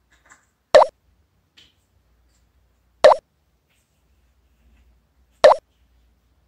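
Three identical short cartoon 'plop' sound effects, about two and a half seconds apart, one for each plastic measuring cup that pops into the nested stack.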